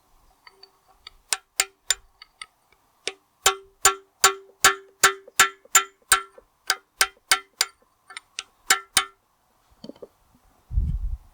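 A hammer striking steel about two dozen times, roughly three blows a second, each blow ringing, while parts are driven out of a tractor axle case. After the blows stop there is a single low, heavy thump.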